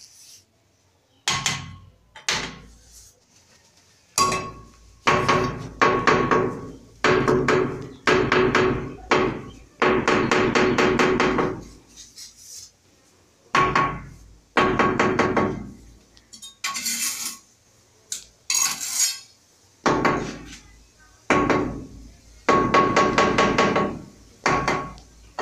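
A hand working hard against a glazed ceramic wall tile as it is set: about a dozen bouts of rapid rattling, squeaky contact, each lasting about a second and fading out.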